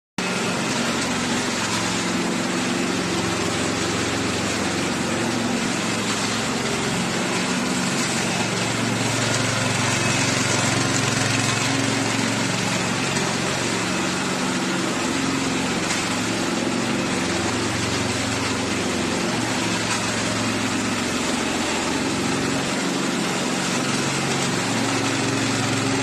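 Remote-controlled ride-on power trowel's small gasoline engine running steadily at working speed as the machine moves across the concrete floor.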